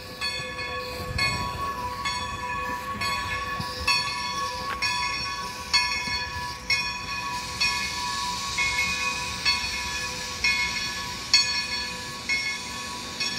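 Great Western 90 steam locomotive heard in the distance: a regular beat about once a second over a steady whine and hiss.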